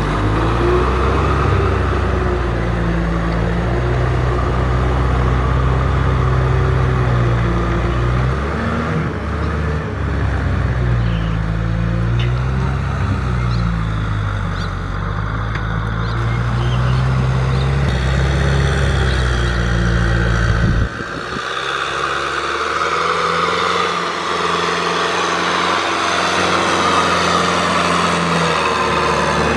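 Kubota M6040SU tractor's four-cylinder diesel engine running steadily under load as it pulls a rotary tiller through the soil. About two-thirds of the way in, the deep engine rumble drops away suddenly and the engine carries on with a lighter, higher note.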